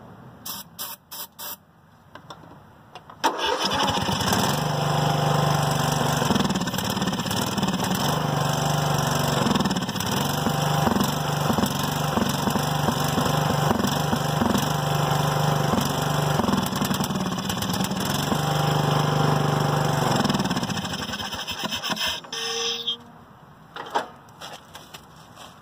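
Short hisses of starter fluid sprayed into the intake of a Husqvarna riding mower's engine, then the engine starts suddenly about three seconds in and runs on the starter fluid for about twenty seconds, its speed rising and falling, before it dies near the end. Running on starter fluid shows the ignition is working and the fault lies in the fuel supply.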